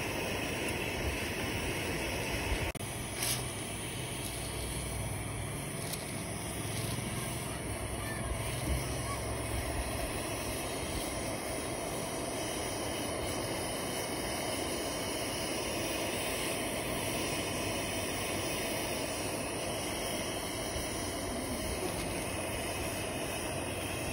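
Optimus 111 pressure stove's burner running steadily, a constant even rush of noise with no change in level.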